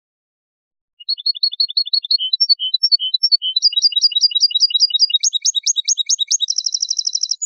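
Recorded Málaga-style goldfinch song used for tutoring cage birds: it starts about a second in with quick repeated high chirps, shifts phrase every second or so, and ends in a rapid trill.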